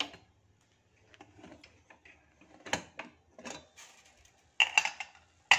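Stainless steel pot of popped popcorn being handled: irregular clicks and light rattles, then a few sharp metallic clanks near the end.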